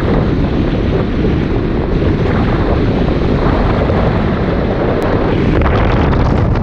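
Wind buffeting the microphone of a camera moving in a vehicle: a loud, steady rush of noise, heaviest in the low end.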